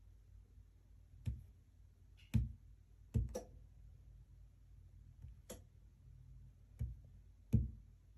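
Irregular sharp clicks and knocks, about seven of them spaced unevenly over several seconds, over a faint steady low hum.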